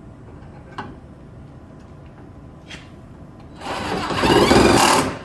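Power drill running in a loud burst of about a second and a half, driving a screw that draws a new rocker panel into place, with a couple of faint clicks before it.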